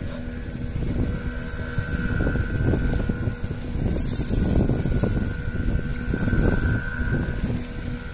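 Wind buffeting the microphone by the open sea, with a steady engine hum underneath.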